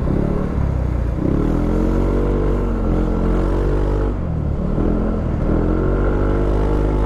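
Yamaha Aerox 155 scooter's single-cylinder engine running under way, its pitch climbing and then falling twice, over a heavy low rumble of wind and road noise.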